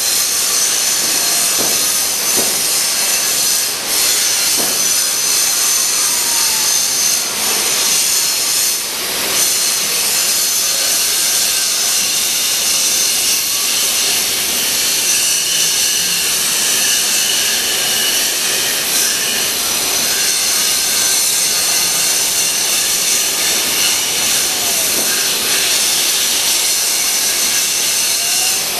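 EPS foam CNC shape cutting machine running while its wires cut through a foam block: a steady hiss, with faint whines that glide up and down in pitch.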